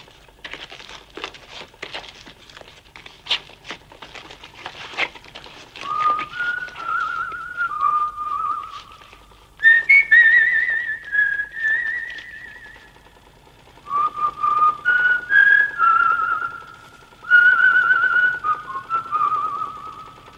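A person whistling a tune with a wavering vibrato, in short phrases that start about six seconds in and pause briefly midway. Before the tune there is a run of irregular clicks and scuffs.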